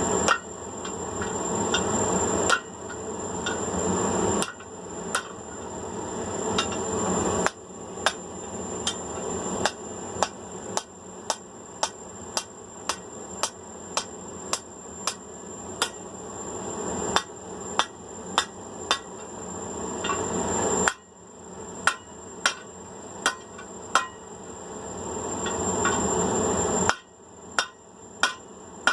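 Blacksmith's hammer striking hot 5/8-inch round steel on an anvil, forming an eye in the bar, in a long run of sharp ringing blows about one a second with short pauses. A steady high thin whine and a background hiss run underneath.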